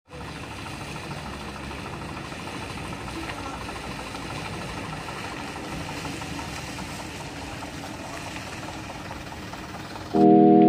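Diesel truck engine running at low revs as the truck creeps along, a steady drone with no sharp events. About ten seconds in, music with sustained keyboard-like notes starts suddenly and is louder.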